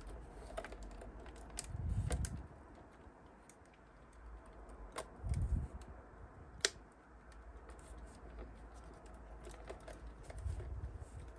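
Scattered light clicks and taps of small plastic model-kit parts being handled and fitted on a workbench, with one sharper click midway and a few dull thumps about two, five and ten seconds in.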